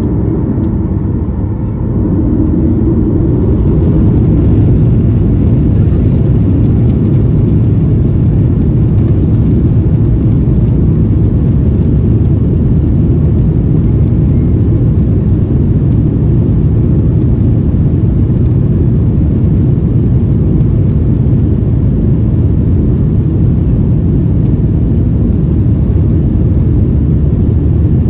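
Boeing 737-900ER's CFM56 turbofan engines, heard from inside the cabin, spooling up to takeoff thrust about two seconds in. They then run at a loud, steady level as the aircraft rolls down the runway.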